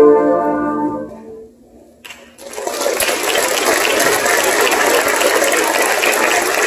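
A concert band's final held chord fades away, followed by a brief hush; about two seconds in the audience breaks into steady applause.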